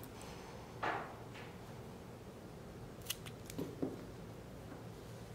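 Small scissors snipping through thin macrame wrapping cord about a second in, then a few light clicks of the blades a couple of seconds later.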